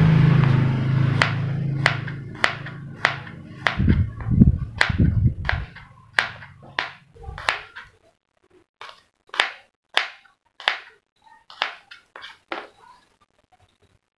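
Kitchen knife slicing garlic cloves on a plastic cutting board: sharp knocks of the blade against the board, about two a second, with a brief pause a little past halfway. A low rumble underneath fades out about halfway through.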